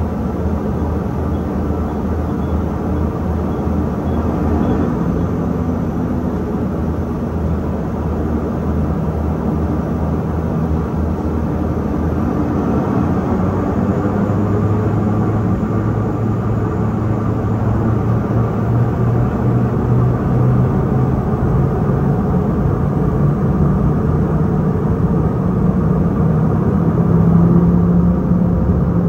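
Airliner's jet engines and rolling rumble heard from inside the cabin as the plane taxis along the runway, a steady drone whose engine hum creeps up in pitch and grows a little louder toward the end.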